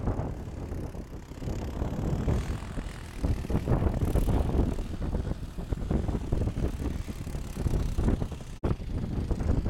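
Wind buffeting the microphone: a gusty low rumble that swells and eases unevenly. It cuts out for an instant near the end.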